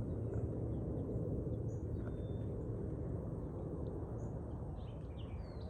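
Outdoor ambience: a steady low rumble with a few faint, short high chirps, likely birds.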